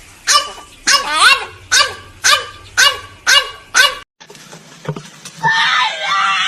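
A dog barking in a quick run of high, yelping barks, about two a second, each falling in pitch. After a short break about four seconds in, a loud, continuous cry takes over near the end.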